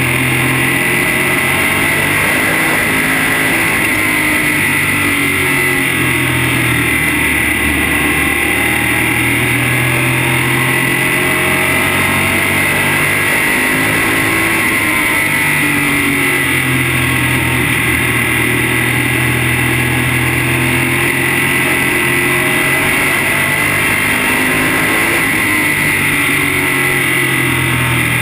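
Modified race car's V8 engine at speed, heard from inside the cockpit, loud and continuous. Its pitch climbs and drops several times as the driver gets on and off the throttle through the laps, over a steady hiss of wind and road noise.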